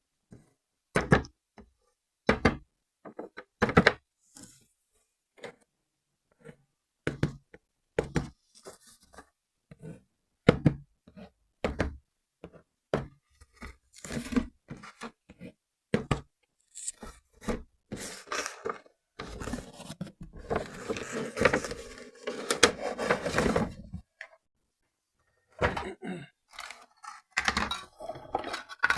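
Plastic toy and packaging being handled by hand: scattered knocks, clicks and thunks, with several seconds of continuous scraping and rustling a little past the middle.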